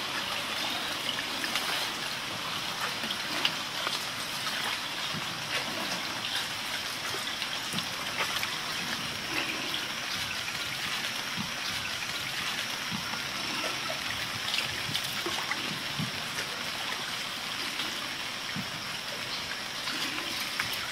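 Water trickling and lapping against a wooden canoe as it glides along a river, with small irregular gurgles over a steady high hiss.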